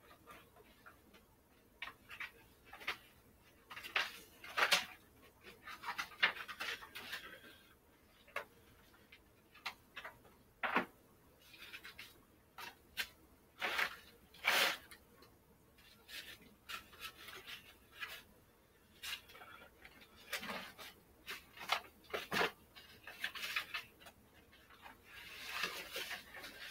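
Irregular knocks, clicks and rustling of objects and papers being handled, picked up and set down on a wooden shelf.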